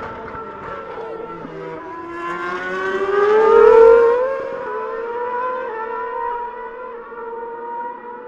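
Formula 1 cars' 2.4-litre V8 engines at racing revs, several notes at once. One car accelerates, its high-pitched note rising and growing loudest a little after halfway, then holding a steady note.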